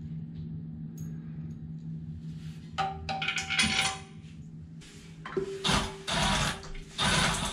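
Metal toilet tank bolts and washers clinking as they are handled and fitted into the tank, then a cordless drill/driver running in a few short bursts near the end, driving new tank-to-bowl bolts in place of dry-rotted washers that let the tank leak.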